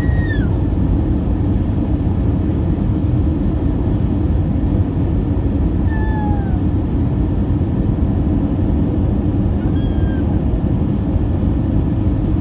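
Steady roar of an Airbus A319 airliner's engines and airflow, heard inside the cabin from a window seat over the wing during the descent to land. Three short, falling, high-pitched cries sound over it: at the start, about six seconds in, and about ten seconds in.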